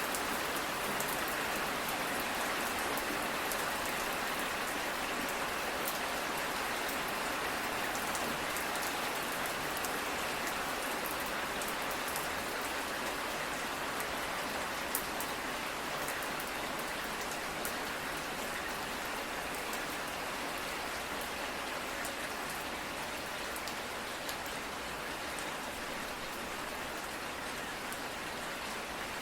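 Steady rain falling, an even hiss with many fine drop ticks, holding constant.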